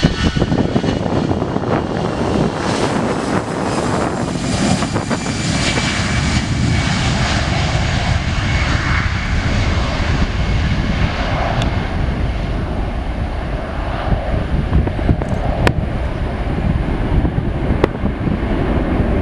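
Twin jet engines of an Aer Lingus Airbus A320-family airliner at takeoff power through the take-off roll and climb-out: a loud, steady roar with high whining tones at first. The whine fades from about halfway as the jet climbs away.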